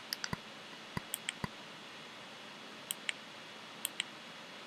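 Remote control buttons clicking as the TV box menus are navigated: a quick run of clicks about a second in, then pairs of clicks near three and four seconds.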